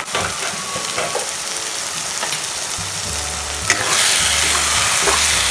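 Schezwan red chili paste sizzling in hot oil in a pan as a spatula stirs and scrapes through it, growing louder after a clack a little under four seconds in.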